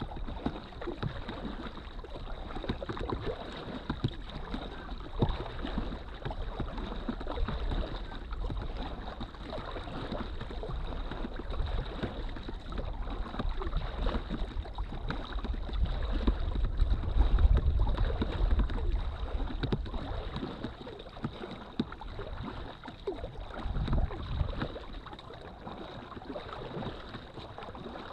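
Lake water splashing and lapping against the hull of a drop-stitch inflatable kayak under way, with wind rumbling on the microphone that swells about two-thirds of the way through.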